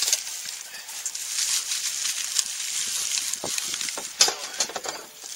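Dry yellow birch bark being crumbled and ground between the hands into a tinder bundle: a continuous crackly rustling, with a sharper crackle about four seconds in.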